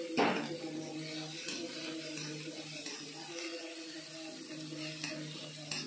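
A steel spatula scraping and knocking against a kadai while stir-frying cauliflower and peas. The sharpest scrape comes just after the start, with a few lighter scrapes later. Background music with sustained notes plays underneath.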